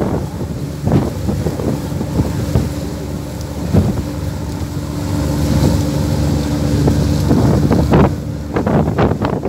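Passenger ferry's engine running with a steady low hum while wind buffets the microphone in gusts.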